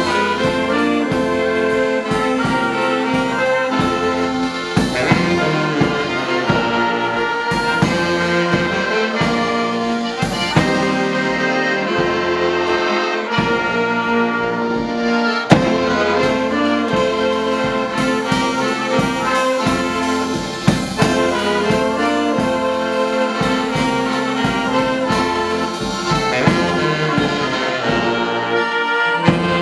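A small brass band of trumpets, clarinet, saxophones, tenor horn and accordion playing a Polish Christmas carol (kolęda), with bass drum and cymbal hits marking the beat.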